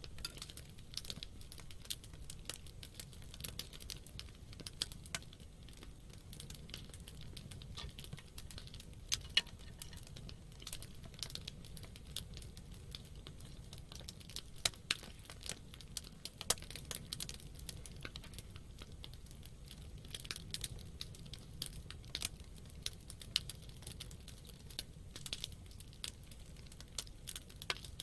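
Wood campfire crackling, with irregular sharp pops and snaps, a few louder ones standing out, over a low steady rumble.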